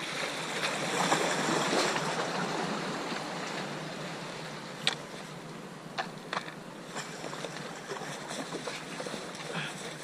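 Sea water washing among seawall rocks, swelling during the first few seconds and then easing, with a few sharp clicks and knocks of a plastic tackle box and a backpack being handled from about the middle on.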